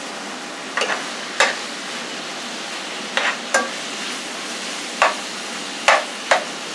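Metal spoon stirring mixed vegetables in a frying pan, with a steady sizzle of frying underneath and several short scrapes and knocks of the spoon against the pan.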